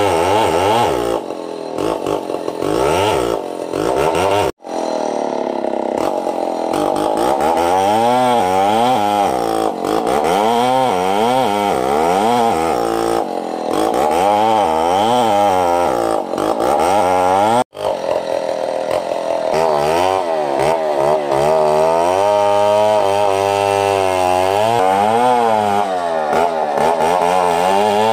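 Large two-stroke chainsaw ripping lengthwise through a big hardwood log, its engine pitch rising and falling repeatedly as the bar bogs into the cut and frees up again. The sound cuts out for an instant twice.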